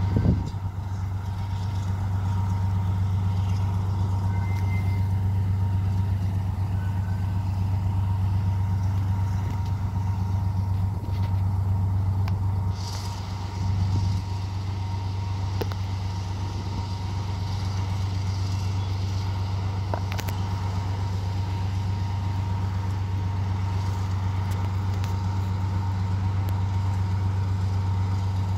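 Diesel engine of a TGM3B diesel-hydraulic shunting locomotive running with a steady low drone as it slowly hauls freight wagons, with a short hiss about halfway through.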